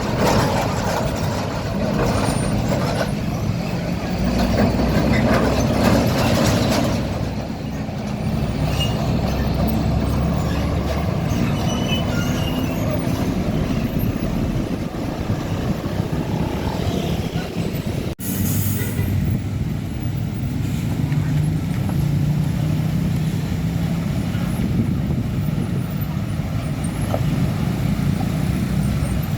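Heavy diesel trucks running on a road, with a steady low engine rumble and road noise that is loudest in the first several seconds. The sound breaks off sharply about two-thirds of the way through, then carries on.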